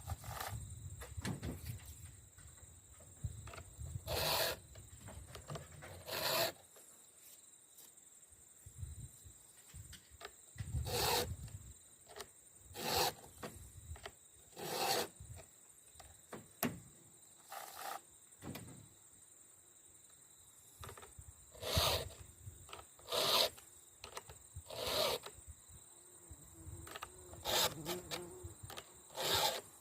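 A file rasping across the cutter teeth of a full-profile 3/8" chainsaw chain, in separate short strokes about every one and a half to two seconds, with a few longer pauses between teeth.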